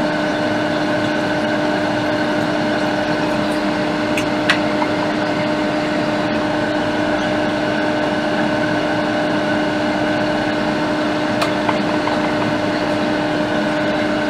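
Steady machine hum with a hiss and a constant held tone, like a fan or blower running, with a couple of faint clicks.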